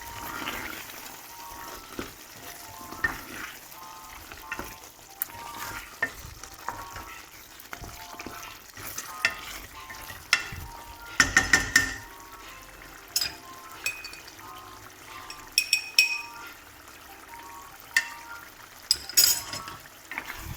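Cooking pot on the stove with food frying and a spoon stirring, the spoon clinking against the metal pot several times, loudest in a quick cluster about eleven seconds in.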